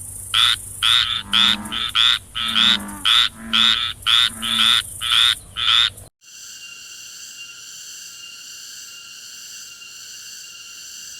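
A frog croaking in quick, evenly repeated calls, about two a second, for some six seconds. It cuts off suddenly and gives way to a steady high-pitched buzzing drone.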